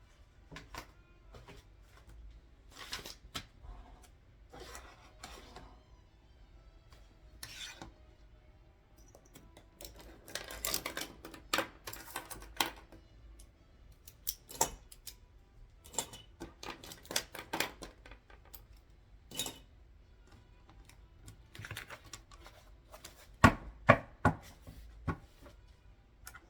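Desk paperwork: sheets of paper rustled and shuffled in short bursts, mixed with sharp taps and clicks. The loudest is a quick run of three sharp taps near the end.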